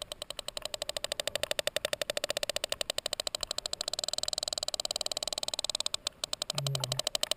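Sperm whale clicks heard underwater: a fast, even train of loud, sharp clicks, likely echolocation as the whale adjusts its bearing.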